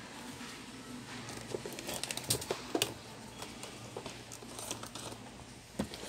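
Light handling noise on a workbench: scattered small clicks and crinkling rustles, busiest about two to three seconds in, over a faint steady low hum.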